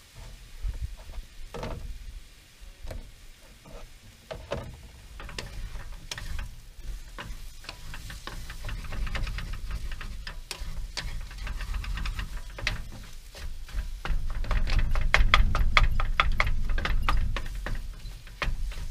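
Wooden spatula stirring and scraping fish and vegetables in a nonstick frying pan, with scattered clicks at first, then rapid repeated scraping strokes against the pan that are loudest a few seconds before the end.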